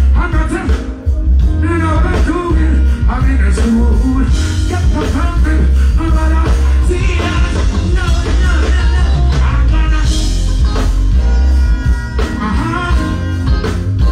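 Live reggae band playing loudly with a heavy bass line, a singing voice over it.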